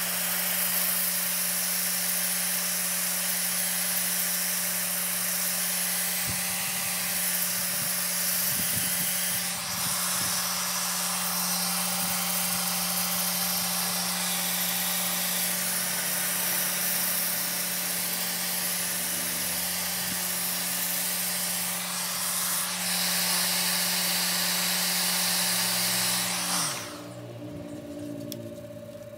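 Festool random orbital sander running against a spinning wooden vase on a lathe: a steady motor hum with the hiss of the abrasive pad on the wood. About three seconds before the end the sander cuts off suddenly, leaving a fainter steady hum.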